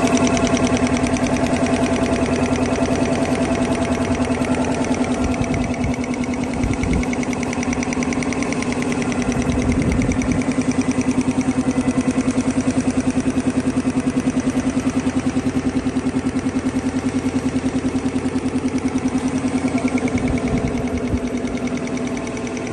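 Single-stage air compressor with a two-cylinder V-type air-cooled pump, driven by a single-phase electric motor, running steadily with a fast, even pulsing hum.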